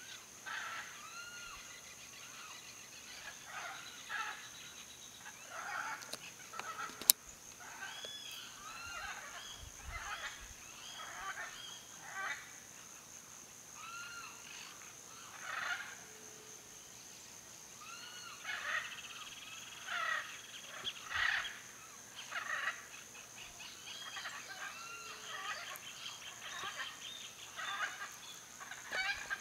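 A chorus of wild birds calling: many short, arched, chirping notes repeating throughout, over a steady high-pitched hum. A single sharp click sounds about seven seconds in.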